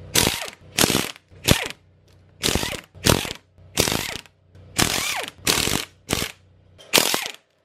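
Cordless impact wrench running in about ten short trigger bursts, hammering bolts loose on a Nissan SR20 cylinder head; each burst ends with the motor's pitch falling as it spins down.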